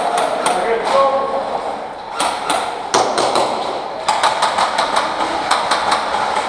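Indistinct voices, with a scatter of sharp clicks and knocks that come thickest in the second half.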